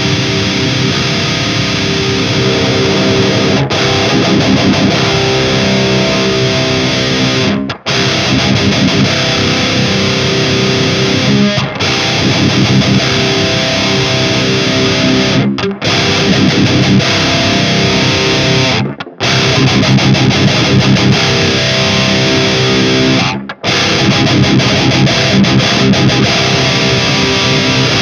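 High-gain distorted electric guitar riffing through a Mooer 005 Brown Sound micro preamp pedal into a Mesa 4x12 cabinet with Vintage 30 speakers, miked with an SM57, while the pedal is being dialled in for more bite. The playing stops sharply for short breaks about five times.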